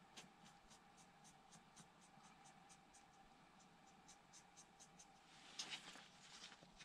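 Faint paintbrush strokes on paper: light, quick dabs at about three or four ticks a second. A louder rustle of the paper sheet being shifted comes near the end.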